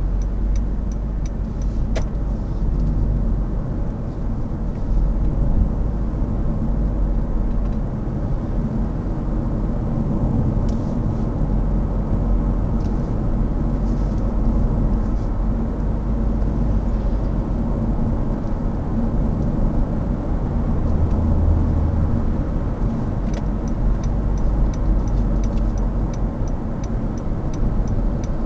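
Steady low rumble of car engine and tyre noise heard inside the cabin while driving at highway speed. An even ticking, the turn-signal indicator, sounds at the start and again for the last five seconds or so.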